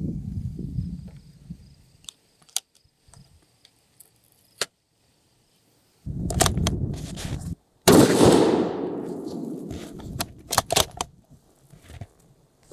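A .308 rifle shot from the short 9.5-inch-barrelled Black Creek Labs TRX Bronco 'Howitzer': one very loud shot about eight seconds in, ringing out for about two seconds, with a shorter loud burst just before it. A run of sharp clicks follows.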